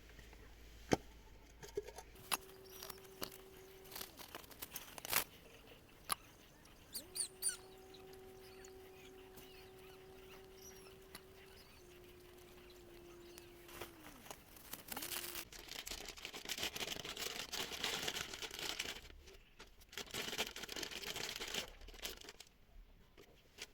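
Faint scattered clicks and knocks of parts being handled, with a thin, steady whine held for a couple of seconds and then for about seven seconds, dropping slightly in pitch at the end. Rustling and rubbing follow near the end.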